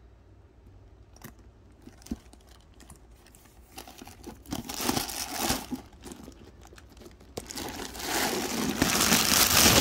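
Handling noise from a Louis Vuitton Speedy 30 coated-canvas handbag being turned over and moved close to the microphone: a few light clicks, then crinkly rustling that swells about halfway through and grows loudest near the end.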